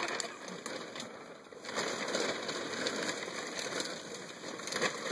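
Plastic vapor barrier sheeting crinkling and rustling as it is pulled and dragged into place.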